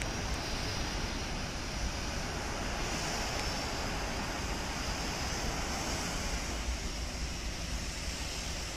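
Wind buffeting the microphone: a steady rushing noise with a heavy, fluttering low rumble.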